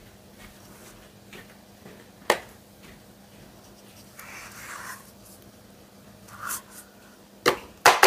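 Metal spoon scraping softened ice cream out of its carton into a food-processor bowl, with a single knock about two seconds in and a quick run of taps near the end as the spoon is knocked against the bowl.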